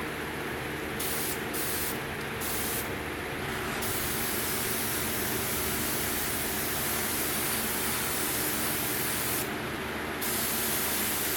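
Air spray gun hissing as it sprays Cerakote coating at about 25–30 psi: a few short bursts, then a long steady spray, a brief pause near the end, and spraying again.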